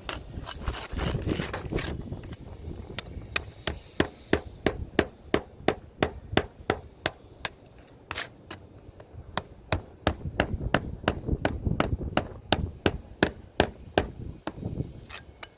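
Hammer striking in quick, even strokes, about four a second, with a light metallic ring on many blows, during a roof pipe-boot and shingle replacement. Two long runs of blows with a short break between them.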